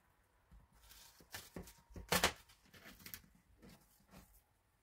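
Light kitchen handling noises while onion is prepared for a pot of beans: a few soft knocks and taps with some rustling, the loudest knock about two seconds in.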